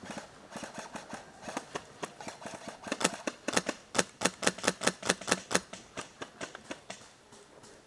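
Airsoft gun firing a quick run of semi-automatic shots, sharp cracks about three a second, thickest in the middle and thinning out near the end.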